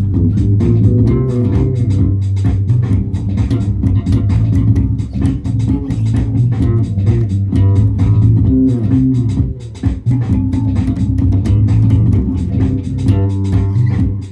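Music on a plucked string instrument: a continuous run of low, bass-register notes with sharp attacks.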